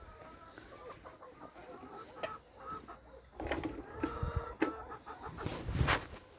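Several chickens clucking, short repeated calls, with a few knocks and rustles, the loudest about four and six seconds in.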